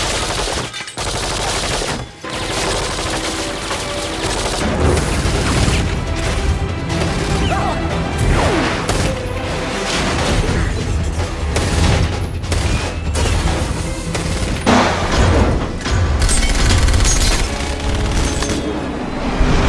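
Movie-soundtrack gunfire: repeated rapid bursts from MAC-10 submachine guns, set against a dramatic film score with heavy low booms. The mix breaks briefly twice in the first couple of seconds, and a deep rumble builds under the shooting from about four seconds in.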